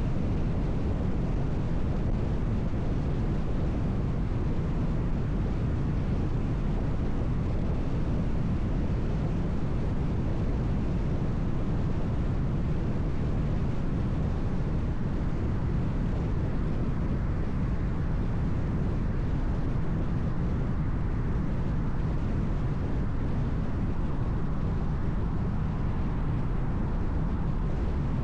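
A car driving at highway speed: a steady, even rumble of road and tyre noise, heaviest in the low range.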